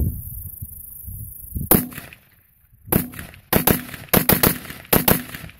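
Battle Rifle Company BR308 12.5-inch short-barrelled AR-10-style rifle, with a muzzle brake, firing 7.62x51 NATO. One shot comes a little under two seconds in, then after about a second a rapid string of shots.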